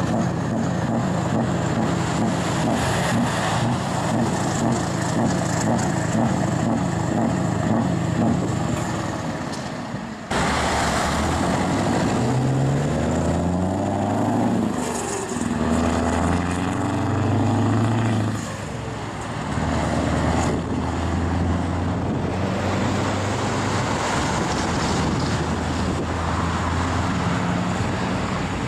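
Scania truck's diesel engine pulling a loaded container trailer. It runs steadily at first; after an abrupt cut about ten seconds in, it accelerates through the gears, its pitch rising and then dropping at each shift several times.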